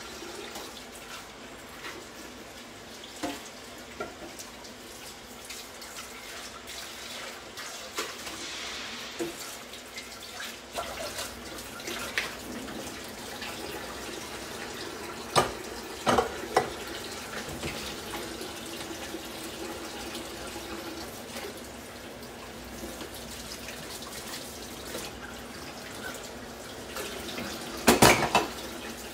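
Cutlery clinking against dishes now and then over a steady background hiss, with a short cluster of louder clinks near the end.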